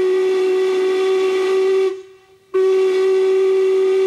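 Steam locomotive whistle blowing two long blasts on one steady pitch. The first cuts off about two seconds in; after a half-second break the second blast sounds on.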